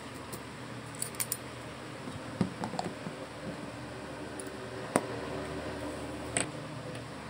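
Scattered small clicks and taps from handling a small metal spoon, a steel bowl and a glass jar with its plastic lid; one sharp click just before five seconds in is the loudest. A steady faint hiss lies underneath.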